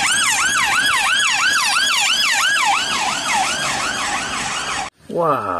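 Police car siren on the rapid yelp setting, about three rising-and-falling sweeps a second; it cuts off suddenly about five seconds in, and a voice follows.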